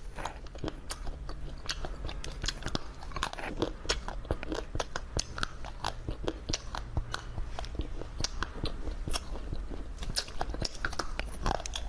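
Close-miked crunching and chewing of a small red candy: a steady run of crisp, sharp crunches as it is bitten and chewed.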